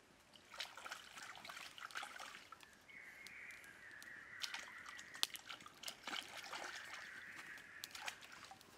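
Water sloshing and trickling as hands wash food in shallow creek water, with scattered sharp crackles from a wood fire burning on the bank.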